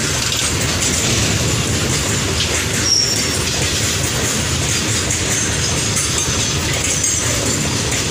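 Loaded freight wagons running past at high speed: a steady rumble and clatter of steel wheels over the rails, with a brief high wheel squeal about three seconds in.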